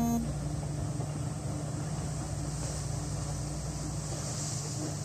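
Distant Kominato Railway Satoyama Torokko train pulling away behind its steam-style diesel locomotive: a steady low engine hum. A high insect buzz swells in the second half.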